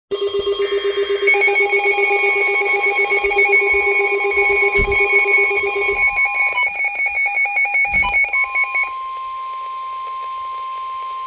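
Several electronic alert alarms beep rapidly at different pitches, with a couple of knocks, then stop about nine seconds in, leaving one steady tone: the NOAA Weather Radio warning alarm tone that heralds a warning message.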